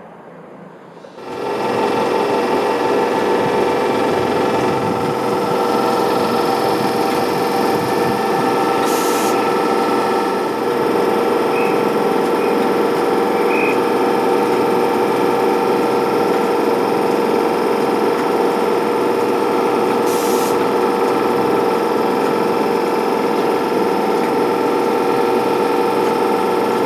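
LNER Class 91 electric locomotive standing at the platform, its onboard equipment running with a loud, steady whining hum that starts abruptly about a second in, with two brief hisses.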